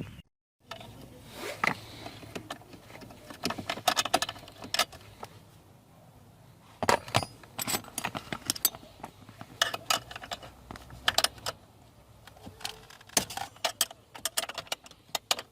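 Metal hand tools clinking and rattling, with irregular clusters of short sharp clicks as they are picked up and handled, over a faint low hum.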